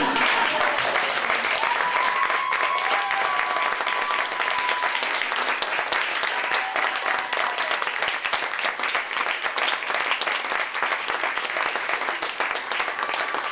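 Theatre audience applauding steadily: a dense, even patter of many hands clapping that holds at the same level throughout.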